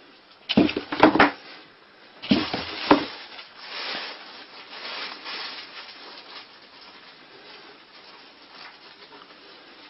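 A cardboard box being thumped and scratched from inside by a cat attacking a hand at its opening: two quick flurries of loud thuds in the first three seconds, then quieter scratching and rustling on the cardboard that dies away.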